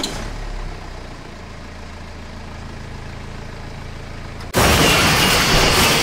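Mini toy tractor's small engine running steadily. About four and a half seconds in it is cut across by a loud crashing noise as the sand-laden trailer overturns.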